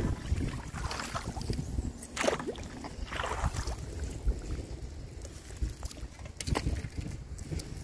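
A wooden pole jabbing into water and beaver-dam sticks at a clogged culvert inlet, giving a few separate splashes and sloshes a second or more apart over a steady low rumble.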